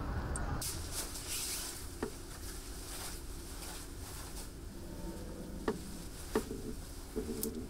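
Laboratory room tone: a steady low hum of equipment, with rustling about a second in and three short sharp clicks or taps, the last two less than a second apart.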